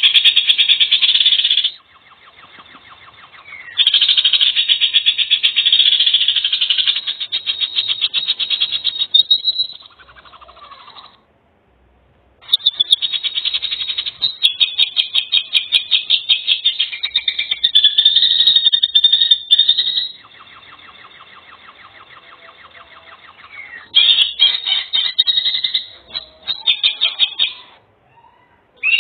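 High, rapidly pulsing trilled calls from wildlife, in several stretches of a few seconds each that start and stop abruptly, with quieter gaps between them.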